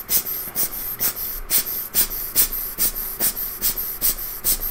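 Quick scratchy scrubbing strokes, about four a second, on a freshly reballed IC chip as it is cleaned off.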